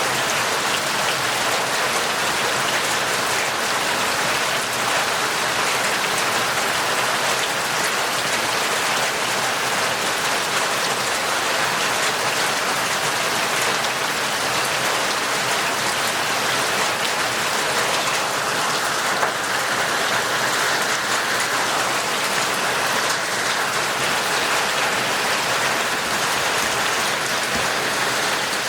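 Heavy, torrential rain falling steadily, a dense, even hiss of countless drops with fine patter throughout.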